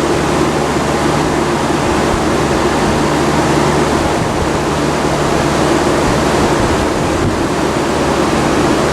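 Frigidaire window air conditioner running in cool mode with its compressor on: a loud, steady rush of air from the blower fan over a low, even hum.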